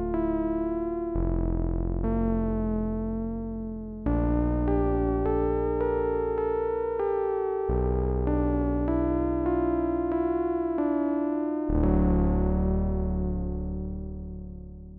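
Arturia Prophet-5 V software synthesizer playing its 'Synthmania' preset: sustained chords over a deep bass note, a new chord every three to four seconds, with a melody moving on top. The last chord, struck about twelve seconds in, slowly fades.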